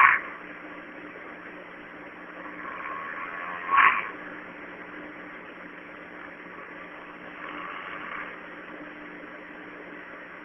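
A man snoring in a drunken sleep: a short loud snort right at the start and another about four seconds in, with softer breathing swells between, over a steady low hum.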